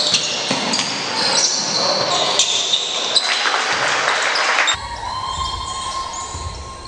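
Basketball game court sound: the ball dribbling, sneakers squeaking on the hardwood floor and players calling out, echoing in a large hall. Near the end the sound cuts to another game, quieter, with a low hum underneath.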